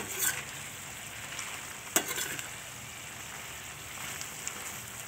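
Intestines and basil sizzling in a yellow spice sauce in a stainless steel frying pan while a spatula stirs them. The spatula knocks against the pan a few times, sharpest about two seconds in.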